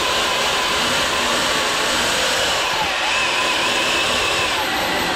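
Cordless drill running steadily in reverse with a screw-extractor bit, boring into a stripped Torx bolt; a continuous motor whine with grinding, its pitch wavering slightly under load.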